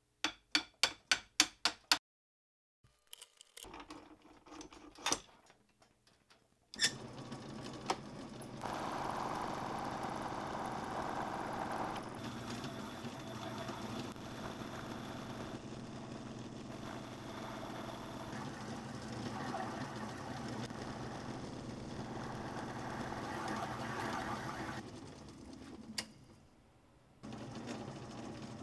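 Home-built Gingery metal lathe running steadily, its belt-and-step-pulley drive turning while a lathe tool cuts a steel cone-point centre, with the noise swelling a little from time to time. It opens with a quick run of about eight scraping strokes, about four a second, from a slotted gauge rod being rotated and pushed through the tailstock bore as a crude reamer.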